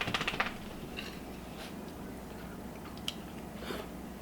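A brief rattle of a fork on a plate at the start, then quiet chewing of food with a few faint clicks.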